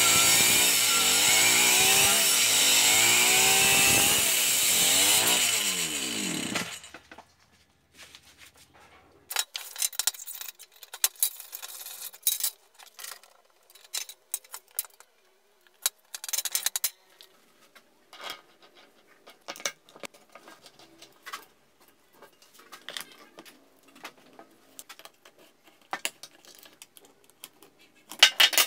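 Two-stroke brushcutter engine driving a homemade chainsaw attachment, running hard with its pitch dipping and rising, then winding down and stopping about seven seconds in. After that, scattered light clicks and rattles.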